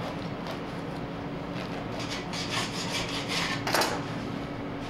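A long kitchen knife sawing back and forth through a crusty Italian roll sandwich: a repeated rasping crunch of the crust, with a louder scrape near the end as the blade gets through. A steady low hum runs underneath.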